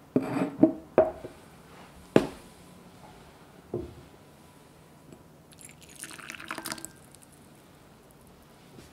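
A ceramic bowl is set down on a table with a few sharp knocks in the first second, then two more single knocks. About six seconds in comes a brief trickle of hot water into the bowl.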